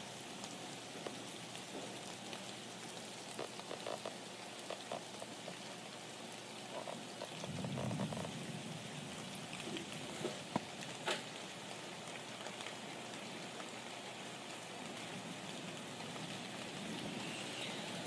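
Steady rain falling, with scattered sharp clicks of single drops landing. A low rumble swells for about a second and a half a little before the middle.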